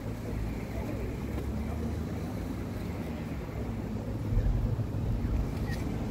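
Low, steady rumbling noise outdoors, growing louder about four seconds in.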